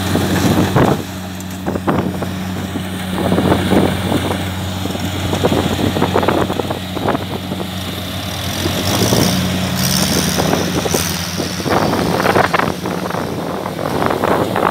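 Kubota DC70 crawler rice combine harvester running, its diesel engine giving a steady low hum with irregular bursts of noise over it; the engine note wavers briefly about eight seconds in.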